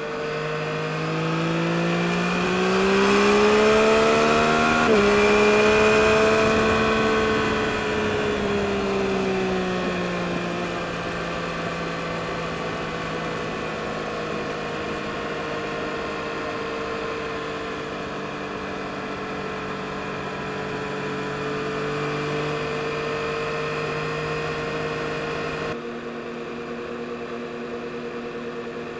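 2022 Yamaha MT-09 SP's 890 cc inline-three engine pulling hard, rising in pitch over the first few seconds with a gear change about five seconds in, then settling to a steady cruise. About two seconds before the end, the background hiss drops away suddenly.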